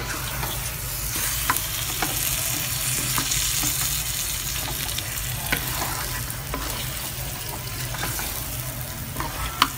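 Raw chicken pieces sizzling in hot oil and curry paste fried until its oil has separated, with a wooden spatula scraping through them and now and then knocking against the pan as they are stirred.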